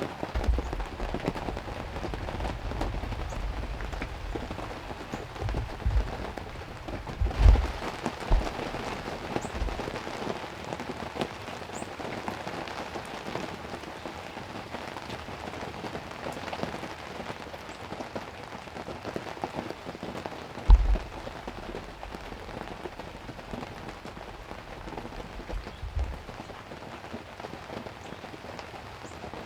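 Heavy rain pouring down steadily, heard from inside a ground blind. A few dull low thumps break through now and then, the loudest about seven seconds in and again about twenty-one seconds in.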